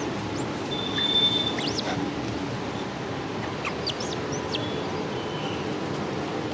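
Birds calling in the background: a short high whistle about a second in and several quick, high rising-and-falling chirps around the middle, over a steady outdoor hiss.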